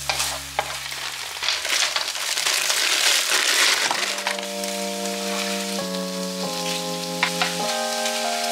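Meat sizzling in a hot nonstick frying pan as it is stirred with a spatula, with a few sharp clicks of the spatula against the pan. The sizzle swells loudest around the middle, when diced zucchini is tipped into the pan, then carries on.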